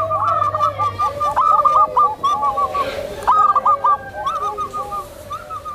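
Zebra doves (perkutut) cooing in quick runs of short, bouncing notes, more than one bird calling over each other at different pitches.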